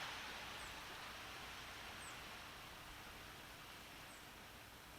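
Faint steady outdoor hiss with three brief, high, falling chirps from a small bird, spaced a second or two apart.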